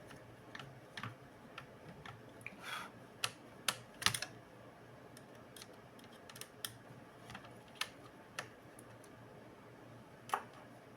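Irregular light clicks and taps of small hard parts being handled while a laptop is worked on, loudest in a quick cluster about four seconds in.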